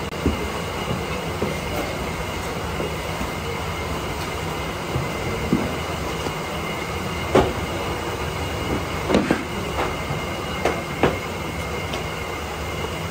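Steady drone of workshop machinery with two thin high whines running through it. Over it come a few sharp slaps and knocks from dough sheets being handled on a floured metal tray: one just after the start, one about halfway through, and a cluster of four in the last third.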